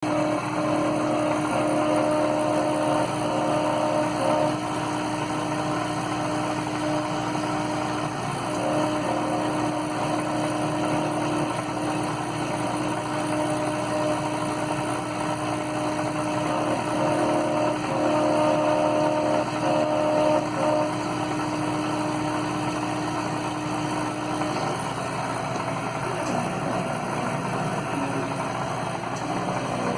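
A K40 laser cutter running through an acrylic cut: a steady whirring hum with a held tone over it. The tone breaks off and comes back several times and drops out about 25 seconds in.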